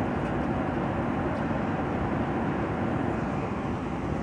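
Jet airliner cabin noise in flight: a steady, even rush of engine and air noise, heaviest in the low range.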